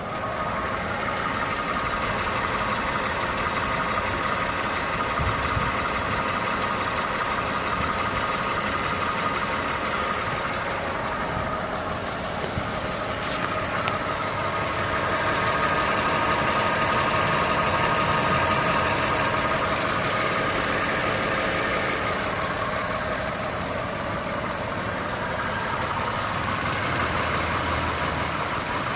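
Toyota 2GR-FE 3.5-litre V6 engine running with a steady ticking noise, a little louder for a few seconds in the middle.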